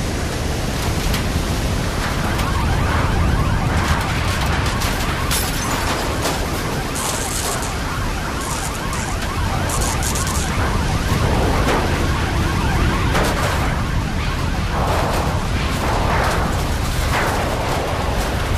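Hurricane-force wind and driving rain: a loud, steady rush of noise with a heavy low rumble, and brief surges of hiss from gusts.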